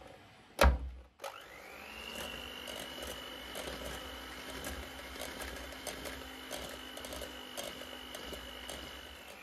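An electric mixer starts up just after a thump, its motor whine climbing over about a second and then holding steady at low speed as it beats choux pastry dough while beaten egg is added, with light irregular ticks throughout.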